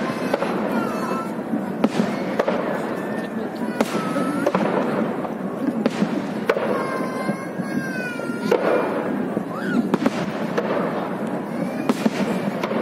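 Aerial fireworks shells bursting overhead: sharp bangs coming about once a second, irregularly spaced.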